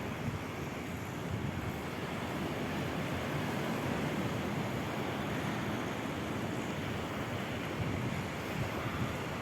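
Sea surf washing steadily against the shore, with wind rumbling on the microphone.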